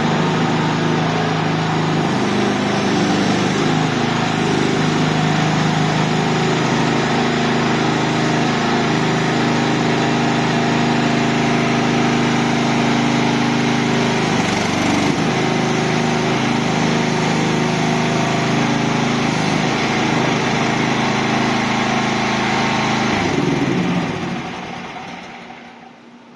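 Small petrol engine of a mini crawler skid steer loader running steadily, its note shifting briefly about halfway through. The sound dies away near the end.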